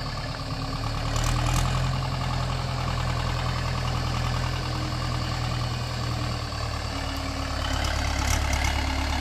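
Diesel farm tractor engine running steadily at low speed while hauling a trolley heavily loaded with firewood logs.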